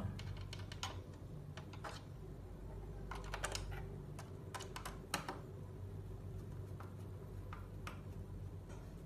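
Irregular small clicks and taps of a screwdriver driving a screw into a car radio's metal chassis and plastic mounting frame, bunched together about three to five seconds in, over a low steady hum.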